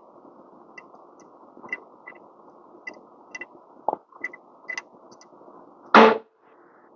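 Small scattered metal clicks and taps of a screw, Allen key and gauge holder being handled at a lever espresso machine's group, with a louder short knock about six seconds in.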